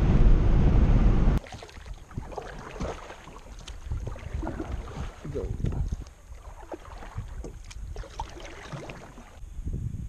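Loud, steady road and engine noise inside a moving pickup truck's cabin, cut off abruptly about a second in. Then quieter water sounds around a kayak: light, irregular splashes and knocks against the hull.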